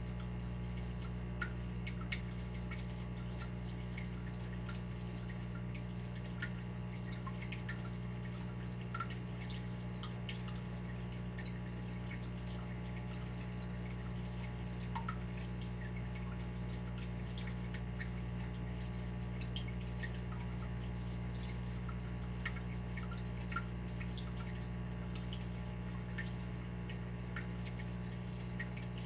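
Water dripping: small irregular drops plinking, over a steady low rumble.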